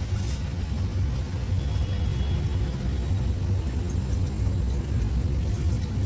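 Steady low rumble of an indirect-direct evaporative cooling (IDEC) air-handling unit running, its belt-driven fan moving air through the filters and heat exchanger.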